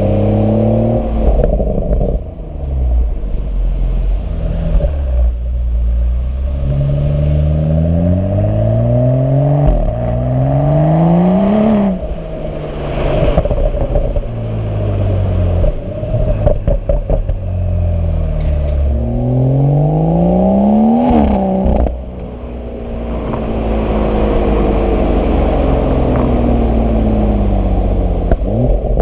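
BMW M135i or M140i turbocharged 3.0-litre straight-six on the standard exhaust, accelerating hard: the engine note climbs in pitch, then drops sharply at each automatic upshift, over and over. About halfway through there is a spell of short crackles.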